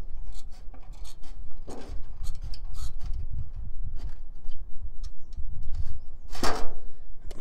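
Hand tin snips cutting sheet-metal chimney flashing, a quick run of short crunching snips as the blades work a notch into the corner, with one louder burst near the end.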